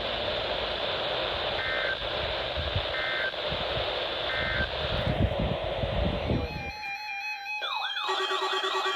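Weather radio receiver hiss with three short electronic beeps about a second and a half apart. About seven seconds in the hiss cuts off suddenly and clean electronic tones take over, with warbling, siren-like rising and falling sweeps.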